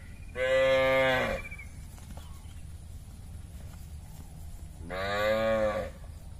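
Cattle mooing twice: two calls of about a second each, the first about half a second in and the louder, the second near the end.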